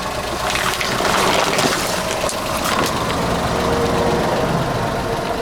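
Car engine running at low speed while a tyre rolls over and crushes water balloons, with crackling, squelching and splashing water over a steady engine rumble.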